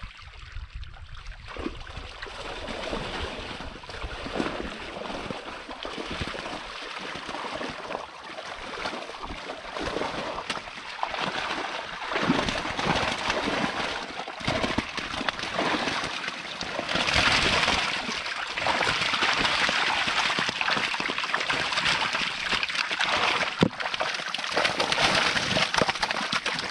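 Lake water sloshing and splashing around a person wading in the shallows while a keepnet is hauled out, with water pouring and dripping from the mesh. The splashing grows louder about two-thirds of the way through, as the net is lifted over the fish sling.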